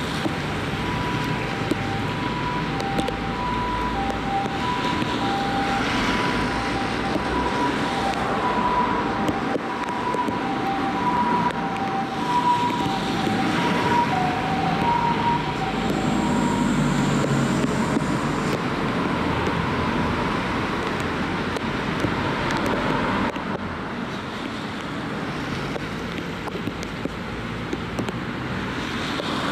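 Japanese ambulance two-tone siren, alternating evenly between a high and a low note as it drives past, over steady road traffic. It fades out about sixteen seconds in, just as a heavier vehicle rumbles by, leaving traffic noise.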